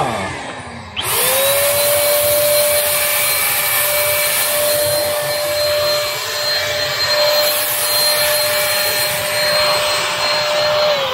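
Electric paint spray gun spraying sunflower oil: its motor whines at a steady pitch with a hiss of spray. The motor winds down at the start, starts up again about a second in, and winds down near the end.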